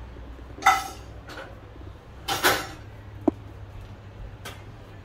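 Kitchen dishes and utensils clinking and clattering: a ringing clink under a second in, a longer clatter at about two and a half seconds, and a sharp tick shortly after.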